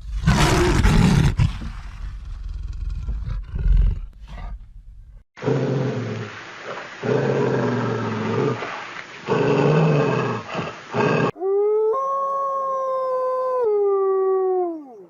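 A run of separate animal sound-effect clips: first a rough, noisy roar for about five seconds, then several seconds of repeated pitched calls, then a long canine howl that holds one pitch, steps down and falls away at the end.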